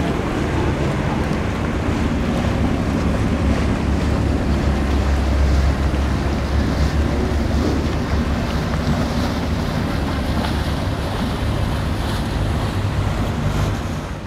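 Wind buffeting the microphone over choppy harbour water, with the steady low hum of a boat engine underneath.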